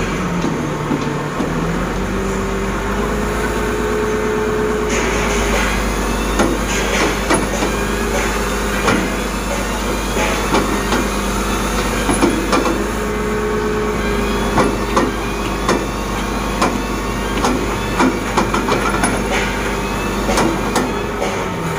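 Zoomlion ZCC550 crawler crane's diesel engine running steadily, with a whine that comes and goes twice, while its steel track shoes clank and knock irregularly, more often from about six seconds in, as the crane creeps along the low-loader deck.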